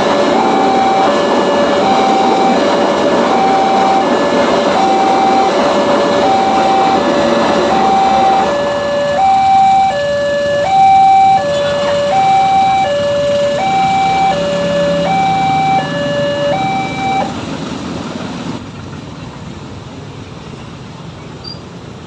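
Railroad crossing warning alarm sounding an alternating high-low two-tone chime, each tone held a little over half a second, over the noise of a passing train in the first half. The alarm stops about three quarters of the way through, and the level falls away to faint background noise.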